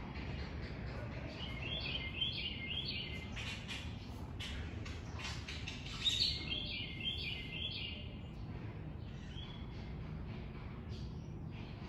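Birds chirping: a quick run of repeated short high notes about two seconds in, and another about six seconds in, over a steady low background rumble.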